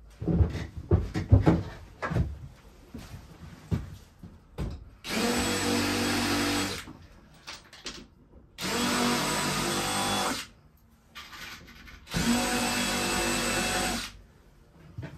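Cordless drill run in three bursts of about two seconds each at an MDF ceiling panel overhead, spinning at a steady pitch each time. A few sharp knocks in the first couple of seconds.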